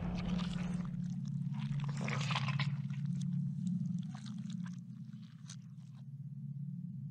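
Sound effects for an animated logo intro: a steady low drone under irregular crackling, scraping clicks, which thin out after about four seconds and stop at about six.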